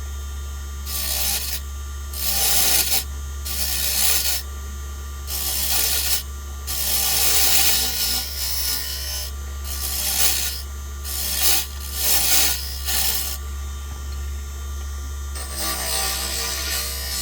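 Wood lathe running with a steady low hum while a hand tool scrapes the spinning wooden lure blank in repeated bursts, each up to about a second long.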